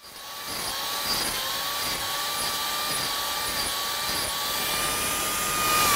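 Handheld electric angle grinder running at a steady high speed while carving into bald cypress wood: a steady motor whine over a rough grinding noise, the pitch wavering slightly as the disc bites.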